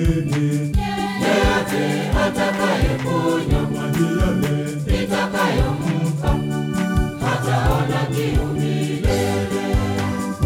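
Mixed choir singing a gospel song in harmony, with a steady low drum beat under the voices.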